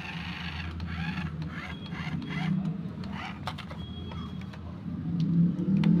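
Toy remote-control car's small electric motor and gears whirring as it drives over artificial turf, swelling twice and loudest near the end, with a few light clicks.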